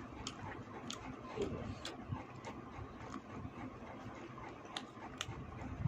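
Eating sounds up close: chewing with small, irregular clicks and smacks, one or two a second.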